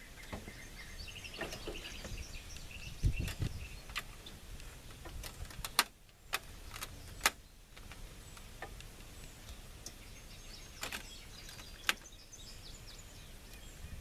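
Scattered sharp clicks and knocks of something being handled, the loudest about three, six and twelve seconds in, with short bird chirps in the background.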